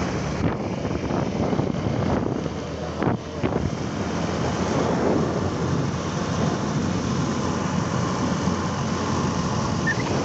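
Wind rushing over the microphone of a moving motorcycle, with the bike's engine running steadily underneath.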